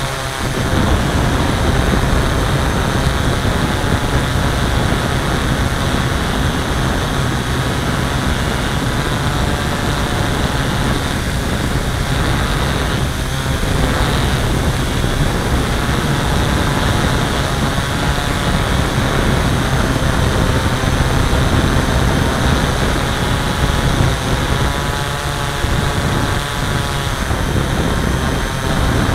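Hexacopter's six electric motors and propellers whirring steadily as it hovers, with several tones drifting up and down in pitch as the motors adjust their speed.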